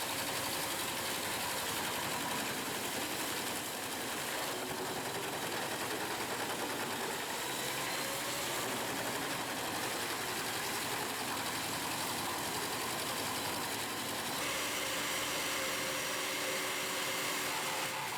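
Truck-mounted industrial drum wood chipper running steadily with a mechanical hum. The sound changes about fourteen seconds in and carries on as a steadier hum.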